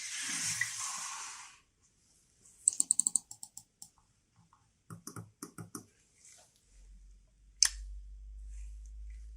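Close handling of a phone and its packaging: a short rustle, then quick runs of small clicks and taps, and one sharper click, with a low hum in the last few seconds.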